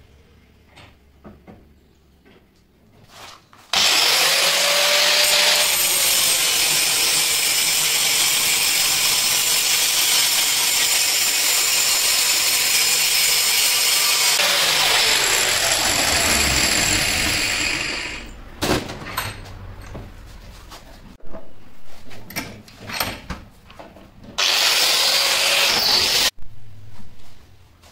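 Angle grinder grinding the edges of steel nuts welded into a honeycomb panel, smoothing them to a finish. It starts abruptly a few seconds in with a steady loud whine and hiss for about fourteen seconds, then runs in short on-off bursts. A last loud stretch near the end cuts off suddenly.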